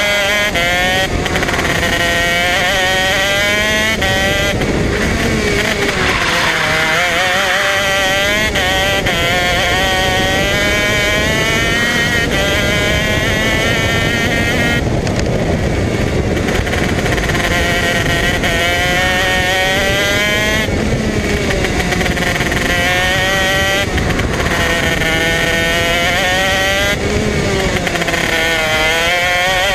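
Modena Engines 125 cc KZ two-stroke shifter-kart engine at full race pace, heard from on board. Its pitch climbs in repeated rising sweeps as it is taken up through the gearbox, falls away into the corners, and climbs again on the exits.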